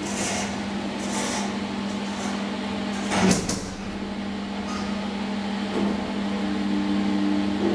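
Car doors of a 2012 SMW traction elevator sliding shut, ending in a thump about three seconds in, over a steady hum in the car. Near the end a wavering mechanical tone sets in as the elevator starts to move.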